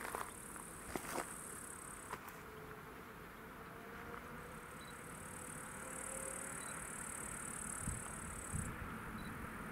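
Insects buzzing in the grass in a high, on-and-off drone, over the low rumble of an approaching electric freight train that slowly grows louder in the second half. A few faint clicks in the first couple of seconds.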